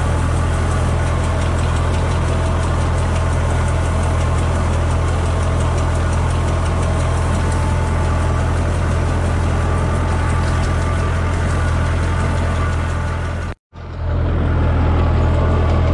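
Farm tractor engine running at a steady speed, heard close from the driver's seat as a constant low drone. It breaks off for an instant near the end and then resumes.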